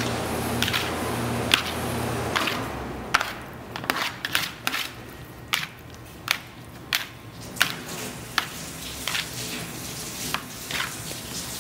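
Hands and a plastic scraper patting and pressing soft kunafa dough into an aluminium sheet pan: a series of sharp taps and slaps, roughly one or two a second, starting about three seconds in. A low steady hum stops about two seconds in.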